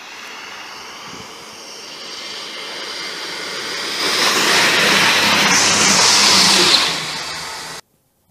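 Class 222 Meridian diesel multiple unit passing at speed: a rushing roar with a low engine note that builds as it approaches, peaks as it goes underneath about four seconds in, then begins to fade before cutting off suddenly near the end.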